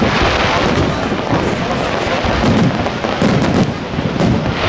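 New Year's Eve fireworks bursting in quick succession, a dense run of overlapping bangs with stronger ones at the start and near the end.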